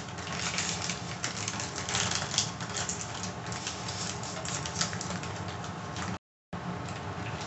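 Crinkling and crackling of cornstarch boxes being opened by hand: cardboard flaps pulled apart and the inner bags rustling as they are pulled out and handled. A brief total drop-out of sound comes about six seconds in.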